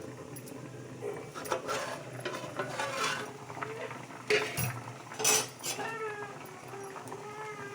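Cooking sounds from a pan: a utensil stirring and scraping, with a few louder scrapes about four and five seconds in. A wavering tone enters near the end over a steady low hum.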